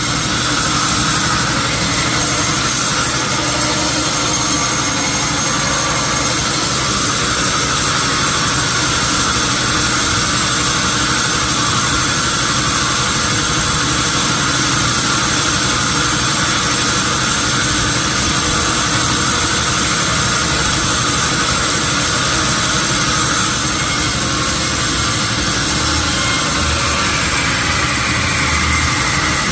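Sawmill machinery running steadily, a constant loud mechanical drone with no breaks.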